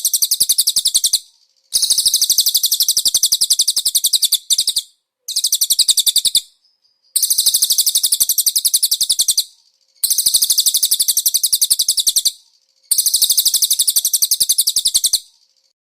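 Cililin songbird singing: a series of fast, high, rapidly repeated trills, each lasting about two seconds, with short pauses between them.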